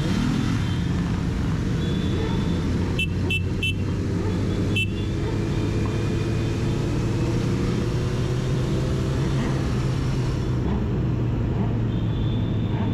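Motorcycle engines running steadily. About three seconds in there are four short, high beeps in quick succession.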